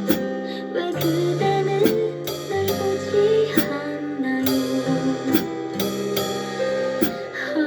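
Pop ballad music: guitar chords with light singing, and sharp drum or cymbal hits about once a second.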